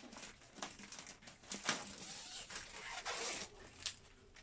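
Cardboard box and packaging being handled and opened: scattered light clicks and rustles.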